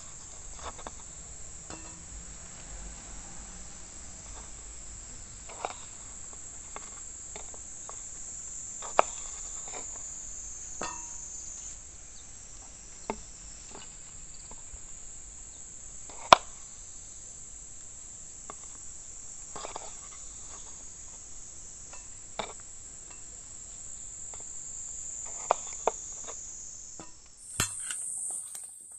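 A kitchen knife knocking on a wooden cutting board as tomatoes and basil are cut: scattered single knocks a second or several apart, one much louder than the rest near the middle. Under it, insects shrill steadily and high, stopping near the end.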